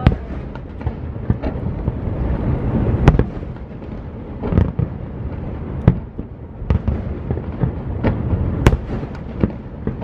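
Aerial firework shells bursting in quick succession: a steady rumble of booms and crackle, broken by sharp, louder bangs, the strongest about three seconds in and again near the end.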